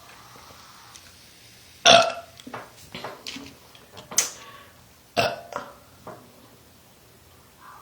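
A woman burping repeatedly: a run of short, abrupt burps, the loudest about two, four and five seconds in, with smaller ones between.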